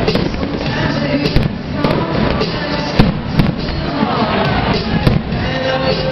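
Fireworks going off: a run of bangs and crackling, the sharpest about three seconds in, over music playing.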